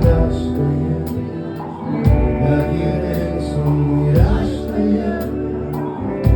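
Live rock band playing an instrumental passage: steady bass notes, chords and drums with a regular cymbal beat.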